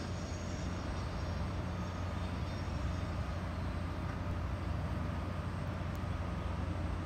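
Steady low rumble of outdoor urban background noise, with a faint steady hum above it.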